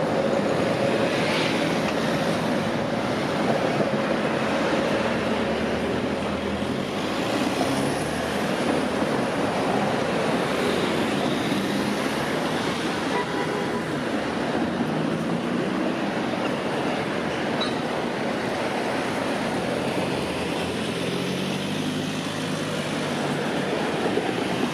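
Steady street traffic noise, with vehicle hums that rise and fall in pitch as vehicles pass.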